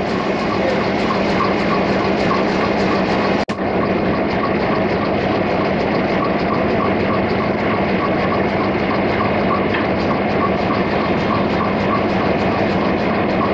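Diesel locomotive's engine idling steadily close by, with a faint even pulsing in its note. The sound breaks off for an instant about three and a half seconds in.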